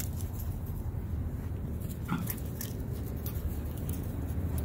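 A poodle gives one short, high whine about two seconds in, over a steady low rumble and faint crackling.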